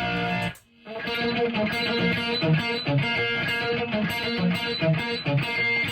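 Overdriven electric guitar through a Marshall AFD100 amp in #34 mode, boosted by a Solo Dallas replica pedal: a held chord cut off about half a second in, then after a brief gap a quick riff of picked notes.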